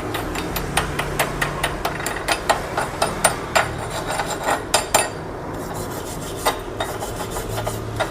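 Slag being knocked and scraped off a fresh stick (MMA) weld bead on steel plate: rapid sharp metal taps, several a second, with scraping between them, thinning to a few taps after about five seconds.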